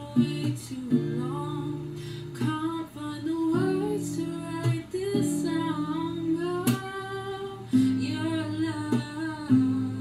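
Acoustic guitar being played: plucked notes and chords ring out and change every second or so. A woman's voice sings softly along with it.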